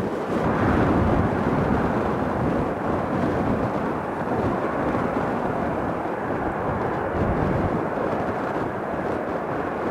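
Steady, loud engine noise of a jet airliner at close range, an even rumble with no clear whine or rise and fall.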